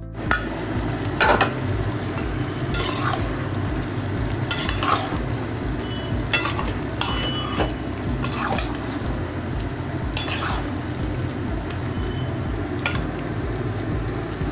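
A metal spatula stirring and scraping mutton pieces through thick masala in a metal pan, with sharp scrapes every second or two over a steady sizzle of the meat frying.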